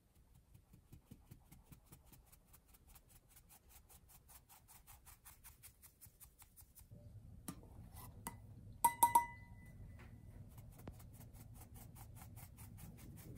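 Flour being sifted through a fine-mesh metal sieve, the sieve tapped by hand in light, even clicks about five a second. About nine seconds in come a few sharp, ringing metallic clinks.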